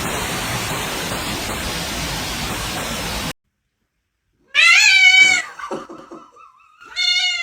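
A steady hiss that cuts off abruptly about three seconds in, then, after a second of silence, a cat meows loudly: one long meow, with a second meow starting near the end.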